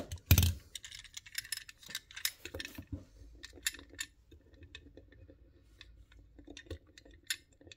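Small clicks and taps of 1/64 diecast metal model cars being handled and set down on a play mat, with one louder knock just after the start.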